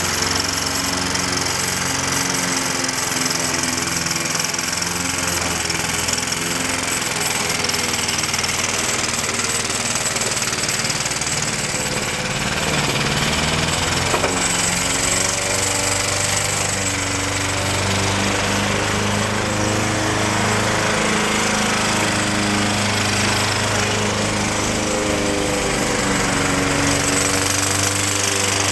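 Walk-behind rotary lawn mower's small engine running steadily while cutting grass, fed by a fuel-vapor system rather than a normal carburettor. Its pitch shifts slightly with the load.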